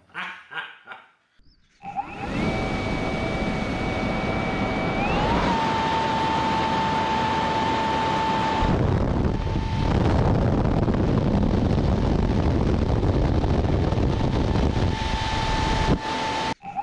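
Electric ducted fan of a radio-controlled hovercraft running: a steady whine over a loud rush of air. The whine steps up in pitch about five seconds in, and the sound cuts off sharply just before the end.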